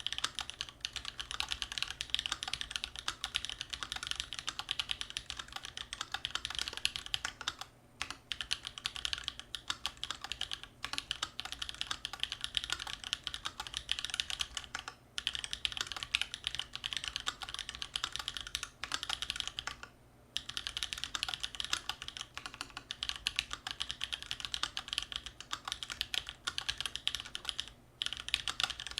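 Continuous fast typing on a custom mechanical keyboard with tactile Holy Panda switches in a steel plate and GMK keycaps: a dense run of sharp keystroke clacks, broken by a few short pauses.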